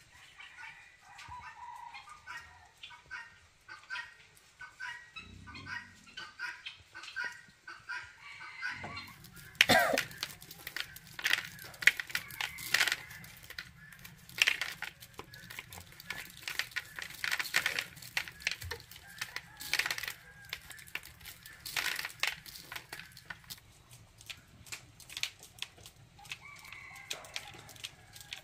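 Chickens clucking, then a long run of sharp clicks and rattles as dried corn kernels are stripped by hand from the cob into a plastic bucket. The clucking returns near the end.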